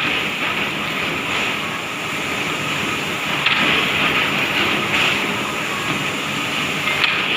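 Woodworking machinery on an MDF board processing line running steadily with a loud, even hiss-like noise, broken by a few brief knocks.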